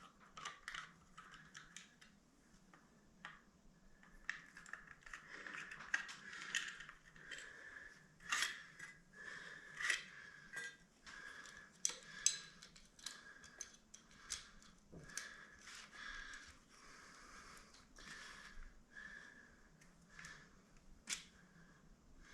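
Small hand tools clicking and snipping against metal in an irregular run of light, sharp clicks, as the power cord is taken off a furnace circulator pump's wiring.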